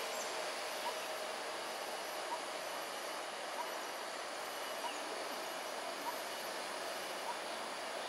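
Steady outdoor background noise with faint, short rising chirps about once a second.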